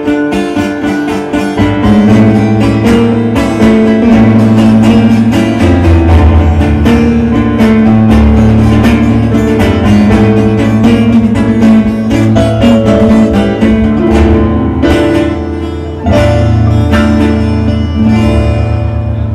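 Live instrumental music: acoustic guitars plucking a melody over sustained low bass notes, playing the introduction to the next song with no singing.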